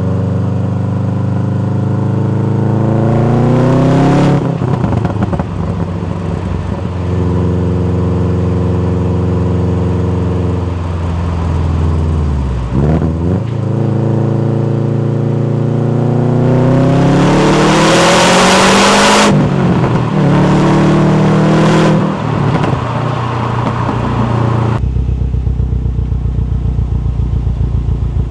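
Subaru WRX STI turbocharged flat-four heard through a factory RA-R or S202 muffler, revved up and down several times from idle. The revs climb and are held steady for several seconds, drop back, then climb higher with a loud rushing sound at the peak before falling again, and the engine settles into a lumpy, pulsing idle near the end.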